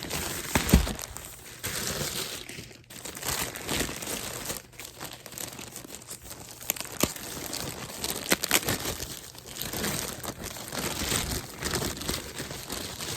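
Shipping packaging being torn open and rummaged through by hand, with irregular crinkling and crackling and a single sharp thump about a second in.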